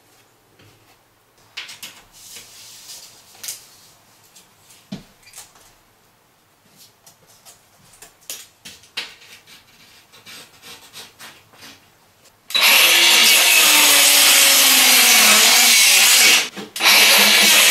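Light knocks, rubs and clicks of handling and measuring, then about twelve seconds in a handheld power saw starts cutting HardieBacker cement board: loud, its motor pitch sagging under load, with a brief stop near the end before it cuts on.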